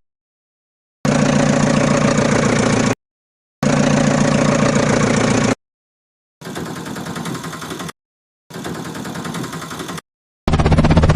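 Engine running sound effect played as five separate clips of about two seconds each, with dead silence between them. The middle two clips are quieter than the others.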